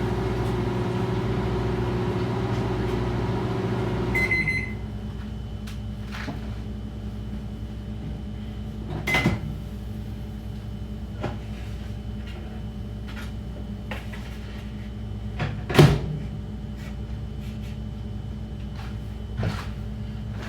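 Microwave oven running with a steady hum that stops about four seconds in with a short high beep. After it, scattered clicks and knocks: a click with a brief beep about nine seconds in, and a loud knock near sixteen seconds.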